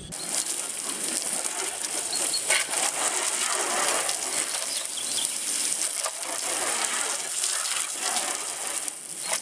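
A jet of water spraying onto a car's side panel and front wheel, a steady splashing hiss as the car is rinsed.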